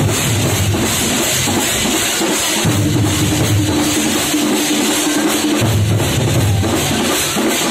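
Thampola troupe of large stick-beaten drums playing together in a loud, dense, driving rhythm, with deep booming beats under it and a held note that comes and goes.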